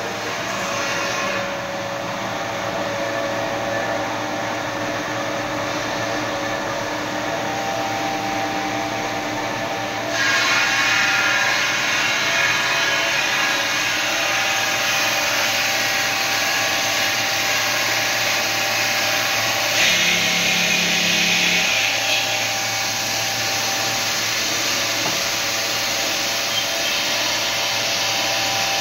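Water-cooled circular stone saw running steadily, its diamond blade cutting through a slab of black marble. About ten seconds in, the cutting noise gets louder and harsher.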